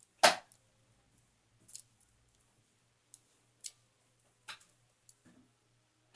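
Metal clicks and light scrapes from a handcuff lock being picked, a louder click just after the start and then single sharp clicks every second or so.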